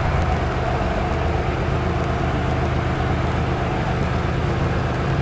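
Skid-steer mini loader's engine running steadily while the machine carries a heavy load on its forks.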